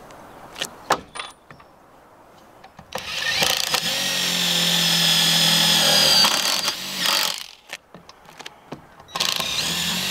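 Ryobi cordless drill driving a large screw into 2x4 wooden deck boards: a steady motor whine that starts about three seconds in, stops, and starts again near the end for the next stretch of driving. A few light clicks come before it.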